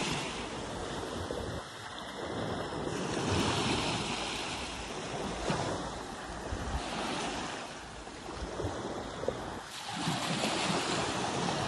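Small sea waves breaking and washing onto a sandy beach, the surf swelling and easing every few seconds.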